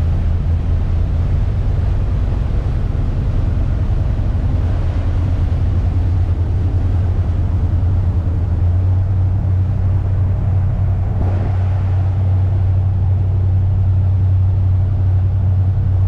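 A 40-foot trawler's diesel engine running steadily underway: a constant low drone.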